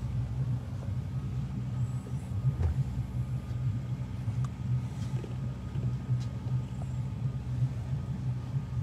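Outboard boat motor idling, a steady low rumble.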